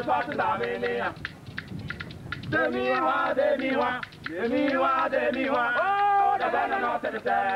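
A group of men singing a chant in phrases, to the clicking of beaded calabash rattles. About a second in the voices pause for a moment and only the rattles are heard, then the singing comes back.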